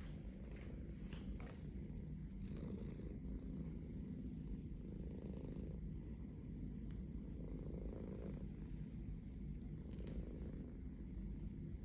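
Domestic cat purring steadily, a low continuous rumble that swells and eases with its breaths, with a few faint clicks.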